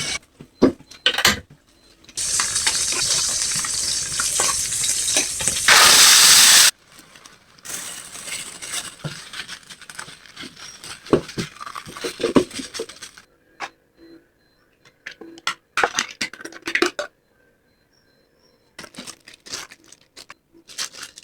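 Home-kitchen cooking sounds: a steady hiss for about four and a half seconds that cuts off sharply, then scattered clinks and knocks of utensils and dishes.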